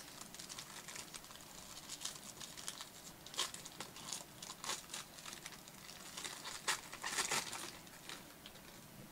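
Gold foil trading-card pack being torn open and crinkled by hand: a run of crisp crackles, loudest about three and a half seconds in and again around seven seconds.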